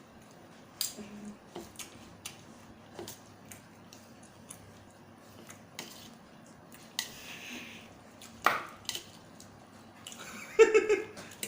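Eating at a table: scattered light clicks of cutlery against a plate, with a soft noisy mouth sound about seven seconds in and a brief vocal sound near the end.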